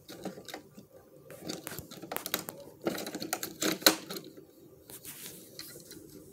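Small plastic toy garbage cans being handled and knocked together: a run of quick clicks and rattles, busiest in the middle, with one sharp knock a little after halfway.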